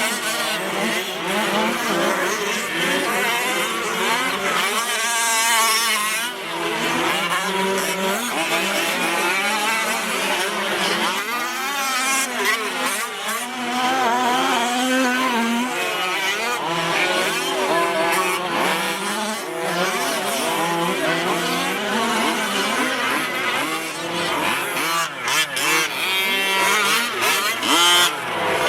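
Several 1/5-scale Losi 5T gas radio-controlled trucks racing, their small two-stroke engines revving up and down over one another in a constant, overlapping whine, with bursts of tire scrabble.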